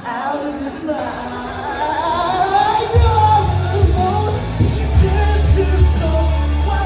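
Karaoke backing track of a post-hardcore rock song with singing over it: a sparser passage, then the full band with heavy bass and drums coming in about three seconds in.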